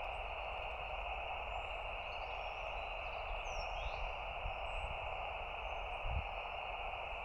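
Lab599 TX-500 transceiver's speaker giving steady band hiss from an open single-sideband channel with no station on it, the frequency empty while being checked before calling CQ. A bird chirps faintly about halfway through, over a low outdoor rumble.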